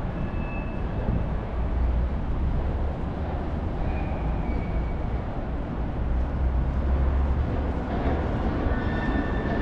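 Downtown street ambience: a steady low rumble of traffic, with a few faint, brief high-pitched tones.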